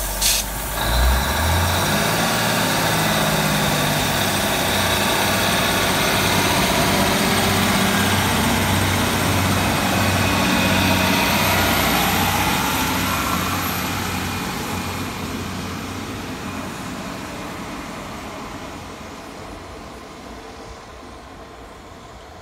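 Class 156 Super Sprinter diesel multiple unit pulling away from a station, its underfloor diesel engines running hard under acceleration. It stays loud for about the first half, then fades steadily as the train moves off. A brief knock right at the start.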